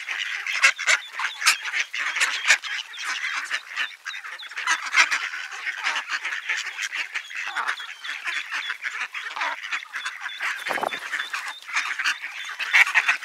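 A flock of mallards quacking and calling, many short calls overlapping without a break, with a quick run of high peeps about seven seconds in.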